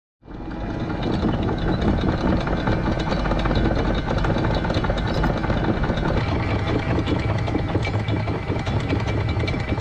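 Electric anchor windlass hauling in the anchor chain: a steady mechanical run with a rapid clatter of chain links over the gypsy.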